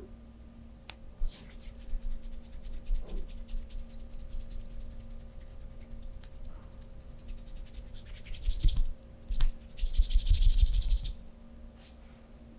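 A masseur's hands scratching and rubbing during a massage: a run of quick scratchy strokes in the first few seconds, then two louder brisk rubs in the second half, with a couple of sharp clicks.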